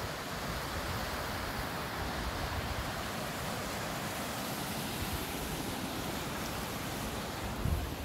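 Small stream rushing steadily over rocks in a little cascade, with a faint low rumble of wind on the microphone. A low bump near the end.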